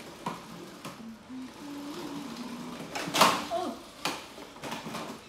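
Knocks and clatters of a plastic ride-on swing car on a tiled floor, the loudest a sharp clatter about three seconds in, with a low voice in the middle.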